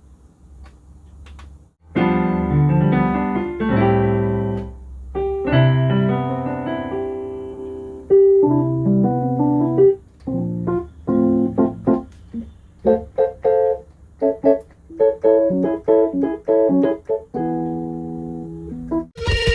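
Korg Kross 2 synthesizer played with a piano-type sound: held chords start about two seconds in, then give way to quicker, shorter notes about halfway through. The keyboard is sounding again after repair of its no-power and no-sound fault.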